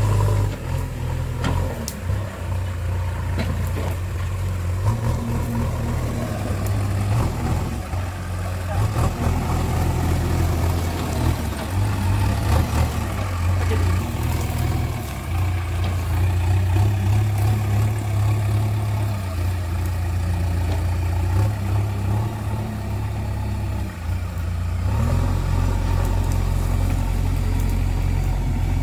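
JCB 3DX backhoe loader's diesel engine running, its note rising and falling again and again as the throttle and load change.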